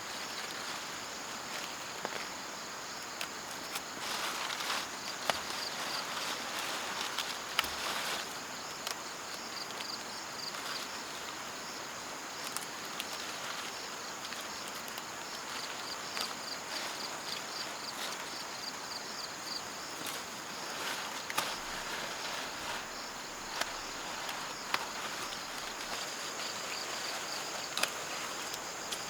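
Insects calling steadily: a constant high buzz with a quicker pulsing trill beneath it, over a soft outdoor hiss. Scattered light clicks and knocks come and go throughout.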